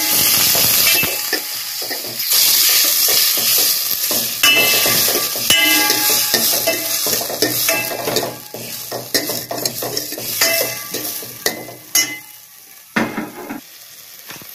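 Chopped onions and tomatoes sizzling in hot oil in a stainless steel pot while a steel ladle stirs them, scraping and clinking against the metal. The sizzle dies down near the end, leaving a few clinks.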